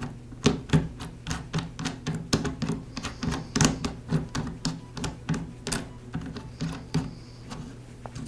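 Metal T-handle thumb screw being turned by hand onto the base clamp screw of a Porter Cable 690 router: a run of quick, irregular metal clicks, several a second, that die away near the end.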